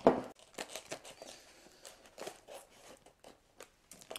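Plastic courier mailer bag crinkling and rustling as it is handled and opened, in short scattered bursts, the loudest right at the start.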